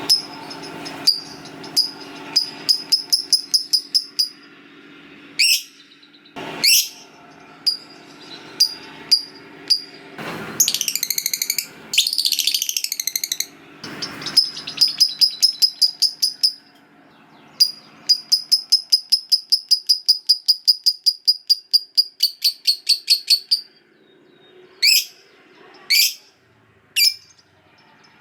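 A lovebird chattering in long rapid runs of sharp high chirps, about eight a second, the longest lasting about six seconds, with single sweeping calls between the runs. This is the drawn-out chattering trill, ngekek panjang, of a lovebird in full voice (gacor).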